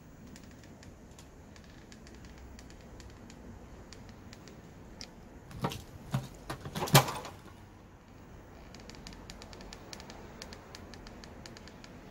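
A caulking gun being handled: light scattered clicks, then a quick cluster of knocks and rattles about six to seven seconds in.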